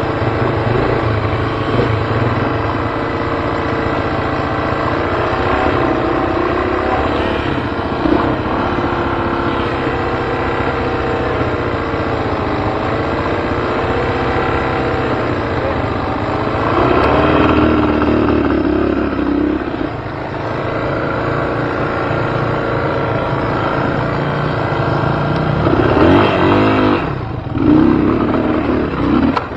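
Dirt bike engine running, its revs rising and falling again and again as it is worked over rock ledges, with louder revving in the middle and near the end.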